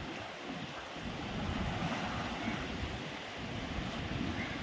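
Small waves washing and breaking against shoreline rocks, with wind buffeting the microphone in a steady low rumble.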